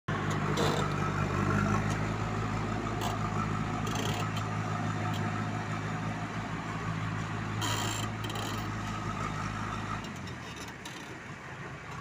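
JCB 3DX backhoe loader's diesel engine running steadily as the machine drives with its front bucket, with a few short metallic clatters. The engine note drops away about ten seconds in.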